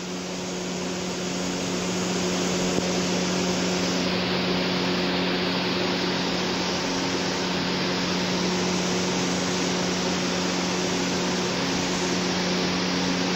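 Steady whooshing drone of a running machine, with a low steady hum underneath; it grows slightly louder over the first two seconds, then holds even.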